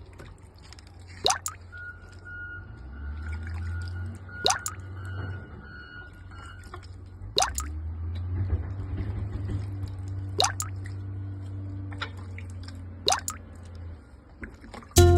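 Water dripping: five single drops land about every three seconds, each a short plink rising in pitch, over a steady low hum.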